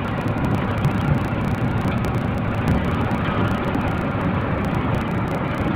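Steady engine and road noise inside a bus cabin cruising at highway speed, about 90 km/h.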